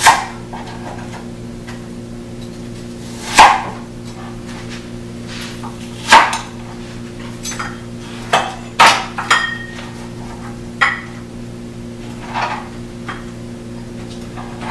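A kitchen knife chopping a red onion into chunks on a plastic cutting board: a series of sharp, irregularly spaced knocks as the blade strikes the board, several close together near the middle, over a steady low hum.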